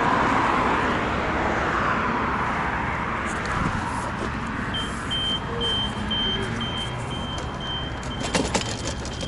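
A car passing on a wet road, its tyre noise swelling and then fading over the first few seconds. From about halfway a faint high beep repeats steadily, and a few sharp clicks come near the end.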